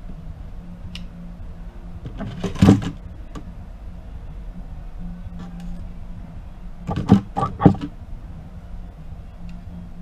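Small hand tools and plastic tablet parts clicking and clattering as they are handled and set down on a workbench during tablet disassembly: one cluster of sharp knocks about two and a half seconds in and another about seven seconds in, over a low hum that comes and goes.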